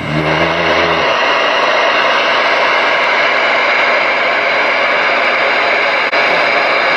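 Galaxy DX-959B CB radio receiving on the air in sideband mode, its speaker giving out steady, loud band static. A low hum sounds over the static in the first second.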